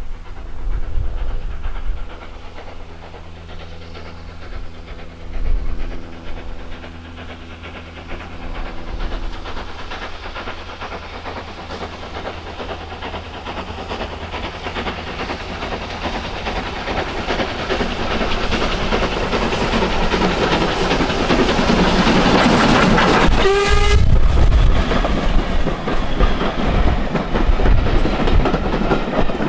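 Steam train approaching, its running noise growing steadily louder, then passing close by about two-thirds of the way in, with the carriages clattering over the rail joints.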